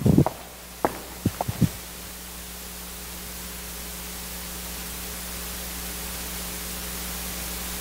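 Four quick footsteps on a wooden stage floor in the first two seconds, then a steady hiss with a low electrical hum that slowly grows louder.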